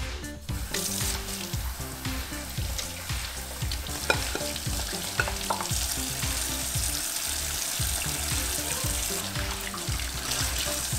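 Kitchen tap running in a steady stream into a stainless steel sink as an empty tomato paste can is rinsed out under it, with a few sharp clicks of the can.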